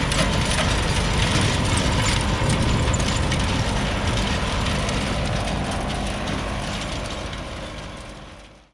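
Engine of an old tiller running steadily while tilling the ground, fading out near the end.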